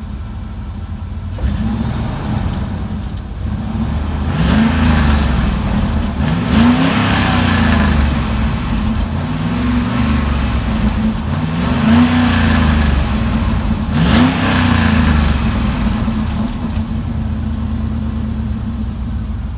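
2000 Dodge Durango's warmed-up engine, muffler deleted with only a gutted catalytic converter left in the exhaust, idling and then revved several times, each rev rising and dropping back before it settles to idle again.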